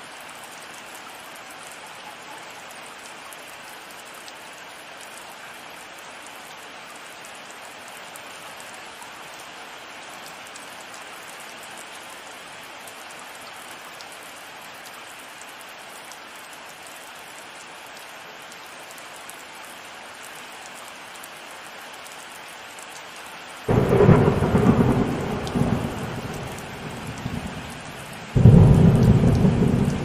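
Steady heavy rain, then near the end two loud thunder rumbles a few seconds apart, each starting suddenly and rolling off.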